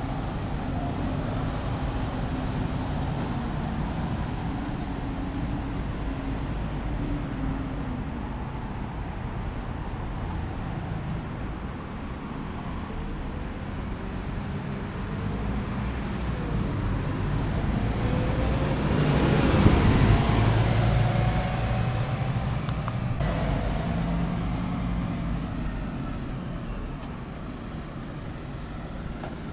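City bus engines and street traffic. A bus engine runs steadily at first, then a bus passes close about two-thirds of the way through, the loudest moment, its pitch sliding down as it goes by.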